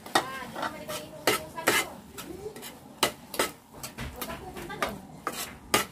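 A spatula scraping and knocking against a frying pan, irregular strokes several times a second, as a thick corned beef and potato mixture is stirred.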